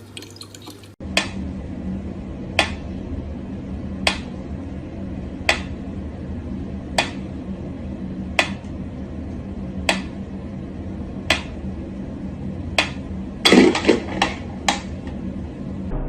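A sharp tick repeating evenly about every one and a half seconds over a steady low hum, with a brief flurry of clattering near the end.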